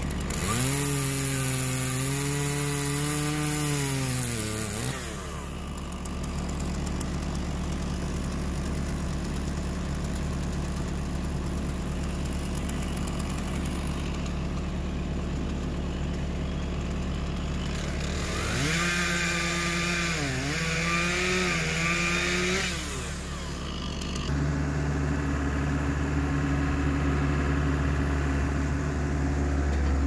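Gas chainsaw cutting through an oak log twice: each time it revs up high, holds while the chain is in the wood, dips briefly under load in the second cut, then drops back to idle. A steady low engine hum runs underneath and grows louder near the end.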